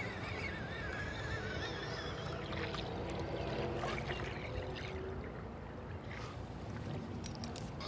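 Wind buffeting the microphone in a steady low rumble, with water lapping against a kayak. A few sharp clicks come near the end.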